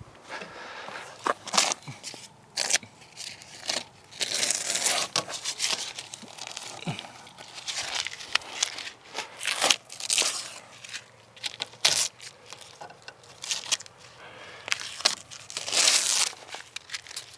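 Irregular rustling and crinkling, with many short sharp clicks and several longer rustles a second or so long.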